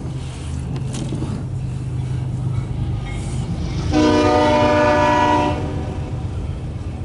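CSX freight locomotive rumbling past at the head of an empty autorack train, its air horn sounding one chord blast of about a second and a half, about four seconds in.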